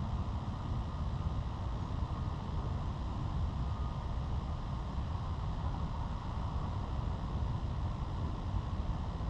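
Steady low rumble of wind buffeting the microphone, with no distinct calls or strikes.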